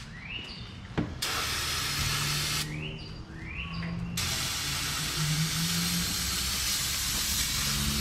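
Aerosol can of brake cleaner spraying onto a truck's front wheel hub with a steady hiss. There is a short spray about a second in, then a long unbroken spray from about four seconds in.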